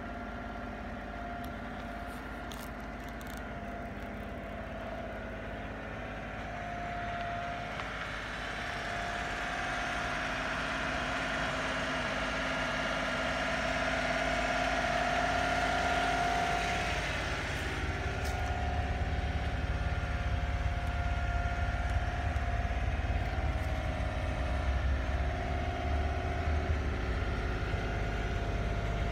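Honda Acty HA4 4WD kei truck's small three-cylinder engine idling steadily. The sound grows slowly louder, with a stronger low hum in the second half, as heard from inside the cab.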